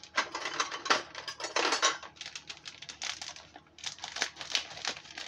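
Plastic bag of grated cheese rustling and crinkling as it is handled. In the second half come quick light clicks and clinks of metal scissors being picked up and opened to cut the bag.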